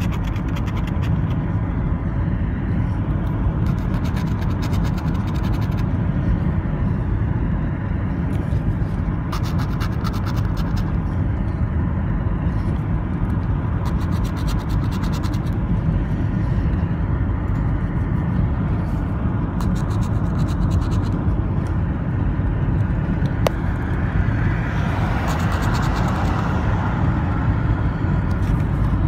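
Steady road and engine rumble inside a moving car, with repeated short bouts of scratching as the coating is rubbed off a scratch-off lottery ticket. The noise swells for a few seconds near the end.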